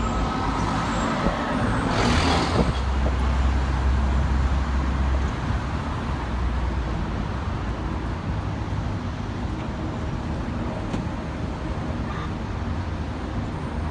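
Heavy truck engine running low and steady, with a short hiss of released air about two seconds in, then fading into steady road traffic noise.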